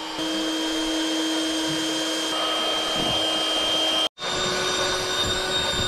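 Small electric air pump running steadily as it inflates a double air mattress: a steady whine over a rushing hum. About four seconds in it breaks off for an instant and resumes a little higher in pitch.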